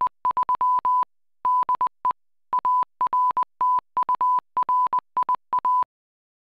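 Morse code sent as a clean single-pitch tone, keyed in dots and dashes as a ham radio '73 de' sign-off; it stops shortly before the end.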